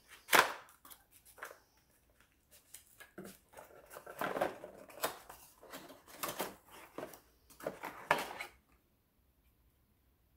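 Cardboard packaging being handled: a quick run of scrapes, rustles and knocks as inner boxes and a cardboard insert are lifted out and pulled open, the sharpest knock just under a second in. The handling stops about a second and a half before the end.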